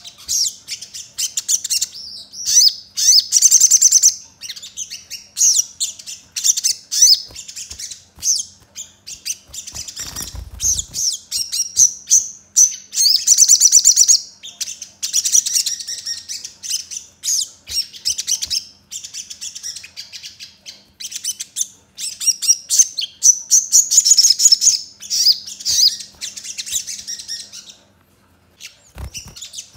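Male olive-backed sunbird (sogon) singing in a cage: fast, sharp, high-pitched chirps and trills in rapid-fire phrases with short breaks, in a song packed with borrowed sparrow-like chirps. A dull low bump sounds about ten seconds in.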